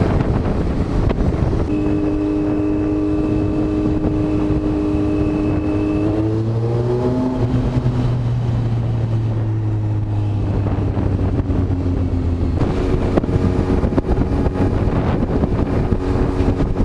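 Kawasaki Z900 inline-four motorcycle engine running while riding, under steady wind noise on the microphone. Its note holds level, rises as it revs about six seconds in, then sits lower for several seconds before settling back to a steady cruising note near the end.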